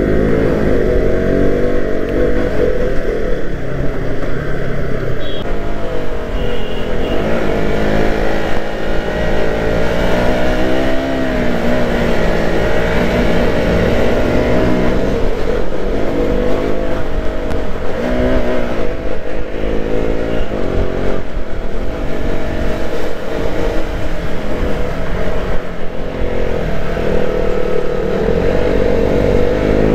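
Sport motorcycle engine heard from the rider's seat, its pitch rising and falling repeatedly as the throttle is opened and eased through a run of bends.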